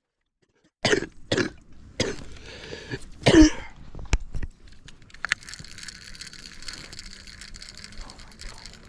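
A person coughing and clearing their throat: four short coughs in the first few seconds, the loudest a little past three seconds in. In the last few seconds a steady high hiss follows.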